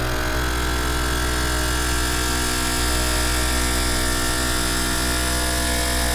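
A steady, dense droning noise with many held tones layered together, cutting off suddenly at the end.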